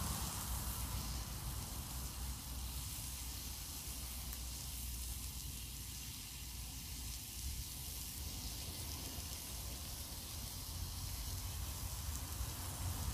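Meat sizzling steadily in a frying pan on an outdoor grill, a soft even hiss over a low steady rumble.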